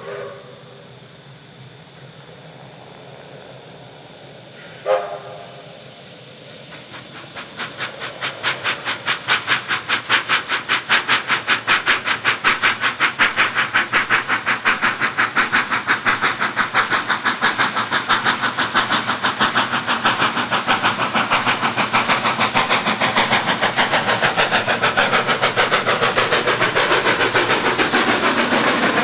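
Steam locomotive giving a short whistle toot at the start and a louder one about five seconds in. Its exhaust beats then come in, fast and regular, growing louder as it approaches under steam and passes close by.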